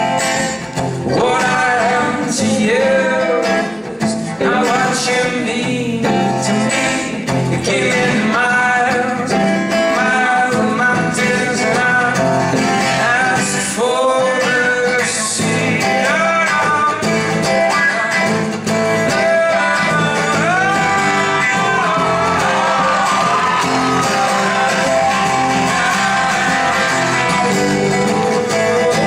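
Live acoustic folk song: strummed acoustic guitar with singing held on long, gliding notes, without clear words.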